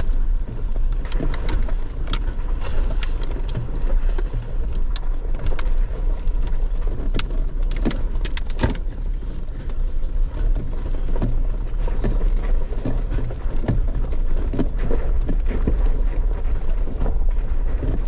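An off-road vehicle crawling at walking pace over a bumpy, rocky dirt trail, heard from inside the cabin. A steady low engine and tyre rumble runs under frequent knocks and rattles as it goes over bumps, with the sharpest cluster of knocks about eight to nine seconds in.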